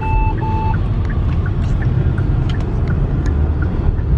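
Car cabin noise while driving: a steady low road and engine rumble. Two short beeps sound near the start.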